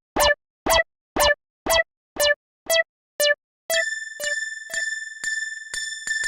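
Cartoon Japanese level-crossing warning bell going 'kan-kan', ringing strikes about twice a second with clean silence between. About four seconds in it gives way to a sustained high electronic ringing tone with faster ticks.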